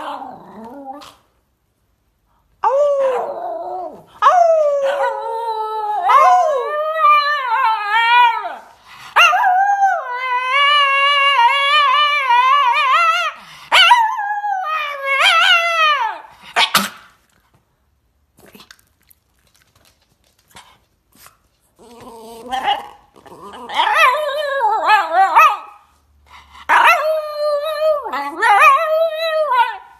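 A dog howling in long calls of wavering pitch, mixed with barks. A few seconds of near quiet come just past the middle, then the howling starts again.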